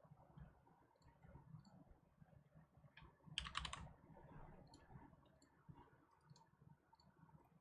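Near silence with faint scattered clicks, and one short, louder rustle about three and a half seconds in.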